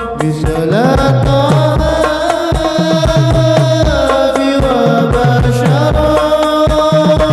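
Sholawat music: a held, gliding melodic line over a steady rhythm of hand drums.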